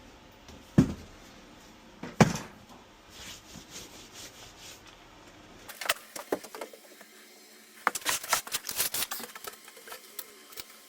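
Two sharp knocks about a second and a half apart, then a run of rapid light clicks and taps.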